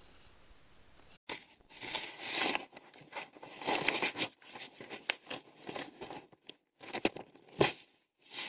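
Hedgehog rustling and crinkling newspaper bedding inside a wooden hedgehog house, in irregular bursts with a few sharper crackles near the end. About a second of faint steady camera hiss comes before it.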